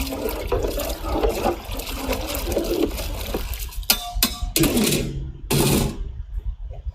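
Water pouring and sloshing in a large cooking vessel, then a few separate splashing bursts in the second half.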